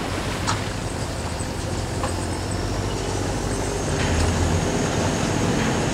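An engine running steadily, a low hum under a noisy wash, growing somewhat louder about four seconds in.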